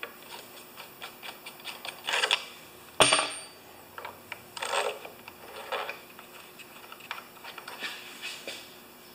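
Small clicks and scrapes of hands fitting a fastener and the plastic air-filter housing onto a Honda lawn mower engine, with one sharp click, the loudest, about three seconds in.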